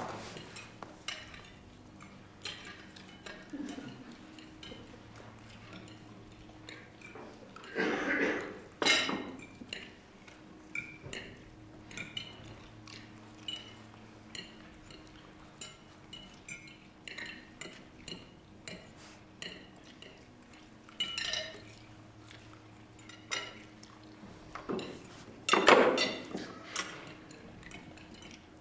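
Cutlery and dishes clinking at a dinner table, with scattered light clicks of forks and knives on plates and glasses being handled, and a few louder clatters about eight seconds in and again near the end.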